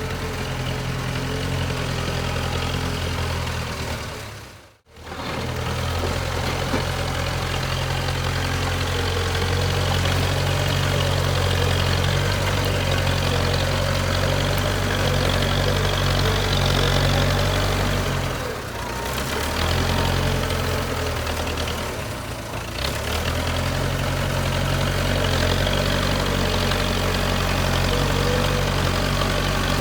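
JCB 3CX backhoe loader's diesel engine running steadily. The sound drops out sharply for a moment about five seconds in and dips briefly twice later on.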